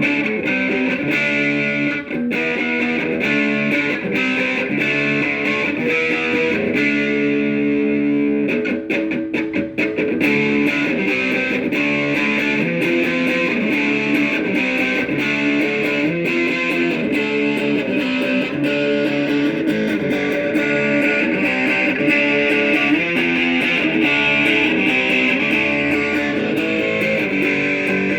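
Electric guitar played through a Joyo AC Tone JF-13, a Vox AC30-style overdrive pedal: strummed chords and picked notes ringing out, with a quick run of picked notes about a third of the way in.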